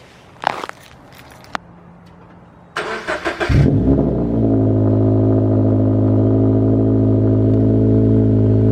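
Toyota 86's flat-four boxer engine cold-started: two short clicks, then the starter cranks about three seconds in. The engine catches with a quick rev and settles into a steady idle.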